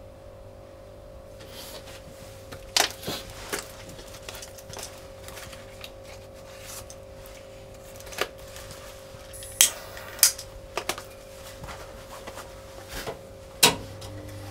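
Scattered sharp clicks and light knocks of small objects being handled, the loudest three or four about a second or more apart in the second half, over a steady low hum.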